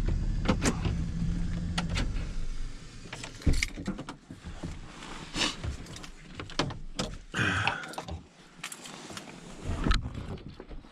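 Chevrolet three-quarter-ton pickup's engine idling, then shut off about two and a half seconds in. A sharp knock follows, then scattered clicks and rattles in the cab. Near the end a door latch clicks as the driver's door is opened.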